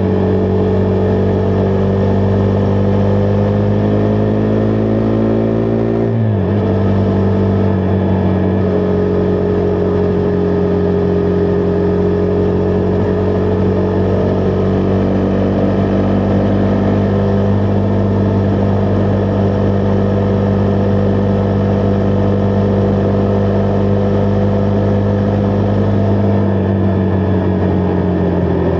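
Husqvarna Vitpilen 401's single-cylinder engine pulling under way: its pitch climbs slowly, drops abruptly at a gear change about six seconds in, then holds steady at cruise and sags slightly near the end.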